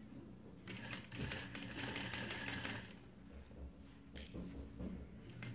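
Industrial sewing machine stitching faux fur trim pieces together: a rapid needle clatter over the motor's steady hum, in two runs with a short pause between them.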